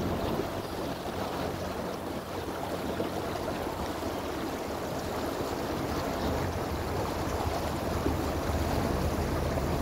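Small boat's engine running slowly, a steady low hum, under a continuous wash of water against the hull.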